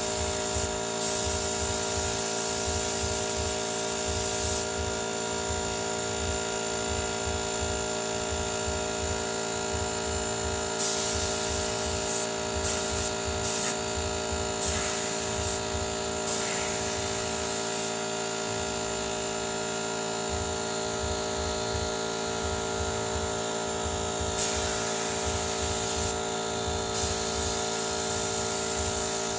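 A 24-litre Motomil air compressor running steadily with a high motor hum and a pulsing low thump from the pump. Several separate bursts of air hiss come in and stop.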